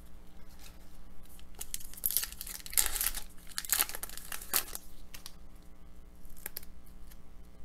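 A 2013-14 Upper Deck Series 1 hockey card pack wrapper being torn open and crinkled, with scattered rustles and clicks. The loudest tearing comes about two to three and a half seconds in.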